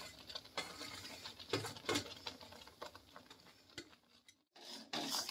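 Faint scattered clicks and light pattering as grated coconut is tipped off a steel plate into a metal pan. It drops out briefly a little past four seconds, and near the end louder scraping starts as a metal spatula begins stirring in the pan.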